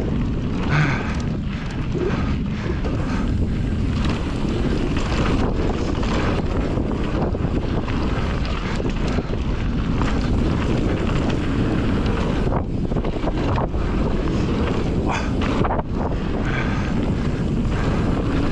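Wind buffeting the microphone of a mountain biker's camera during a fast downhill trail ride: a loud, steady rushing roar.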